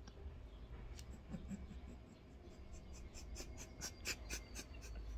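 A woman's quiet, stifled laughter close to the microphone: a run of short breathy puffs and clicks that come faster from about three seconds in.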